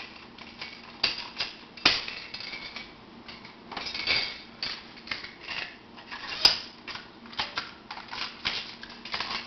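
Irregular small clicks and taps of metal band pliers against a Hosmer 555 prosthetic hook as a rubber tension band is stretched over the hook and worked into place. Sharper single clicks come about two seconds in and again about six and a half seconds in.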